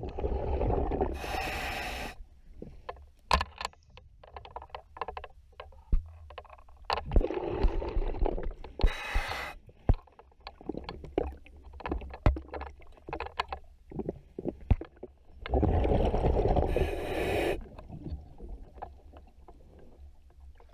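A scuba diver breathing through a regulator, heard underwater: three breaths about seven seconds apart, each a rush of exhaled bubbles followed by a short hiss of inhalation. Scattered sharp clicks in between.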